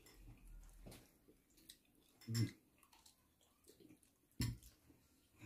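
Faint eating sounds: chewing and fingers working food on a plate, broken by two brief dull thumps, one near the middle and one about a second before the end.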